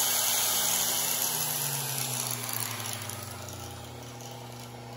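Bison single-phase AC gear motor running on power from a pure sine wave inverter, with a steady electric hum and a high whirring hiss. About two seconds in, the whirring fades and a lower tone slides down in pitch, leaving a quieter hum.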